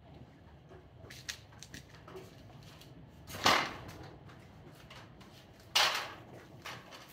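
Two sharp, loud impacts about two and a half seconds apart, with a few lighter clicks and knocks before them, as a hand tool fastens drain tubing to a basement ceiling joist.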